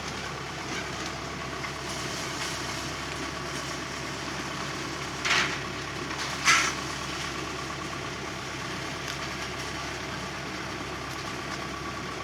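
Small four-cylinder engine of a slow, low-geared sweet corn harvesting machine running steadily. Two brief loud noises cut in about five and six and a half seconds in.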